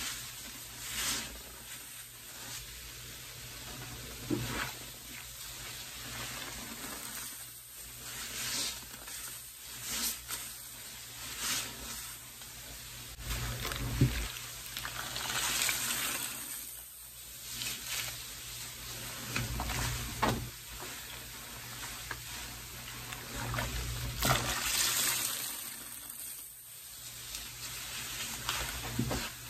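Sponges being squeezed and dunked in a bucket of soapy pine-cleaner water, in repeated wet squeezes with the suds sizzling. There is a sharp click about halfway through.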